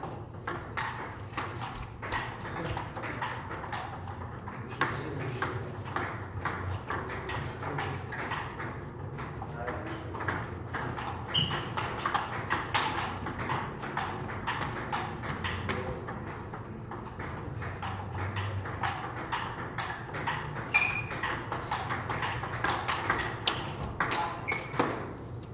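Table-tennis rally: a celluloid or plastic ball clicking back and forth off the rubber bats and the table, many quick sharp knocks one after another.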